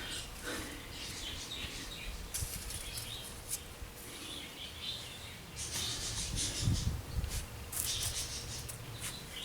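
Rustling and scattered light clicks over a low wind rumble.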